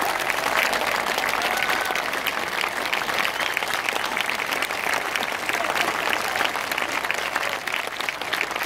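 Large audience applauding steadily, a dense, even patter of many hand claps.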